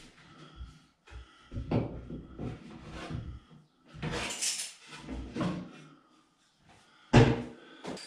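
Clamps and a wooden brace being taken off the top of a shower screen door frame: irregular knocks and clunks, with a brief scraping noise about four seconds in and a sharp knock, the loudest, about seven seconds in.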